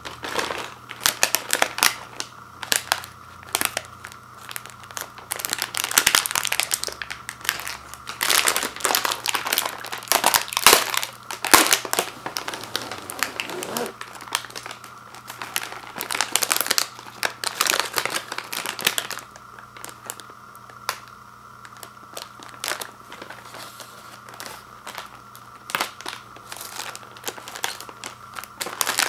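Plastic and foil wrapper of a family-size Oreo Thins package crinkling and crackling as it is peeled open and handled. The crackles are dense through the first two-thirds and grow sparser after that.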